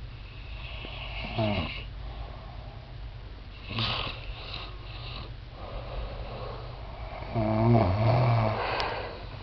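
Two sleeping adults snoring. There is a short snore with a falling pitch about a second and a half in, a noisier breath around four seconds in, and a long, loudest snore with a low wavering tone from about seven to nine seconds in.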